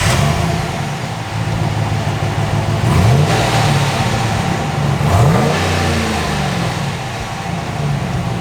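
2021 Ram 1500's engine running through its stock factory exhaust, idling with two short revs about three and five seconds in, each rising and falling back to idle. The note is mild, "stock as a rock", and judged "just embarrassing".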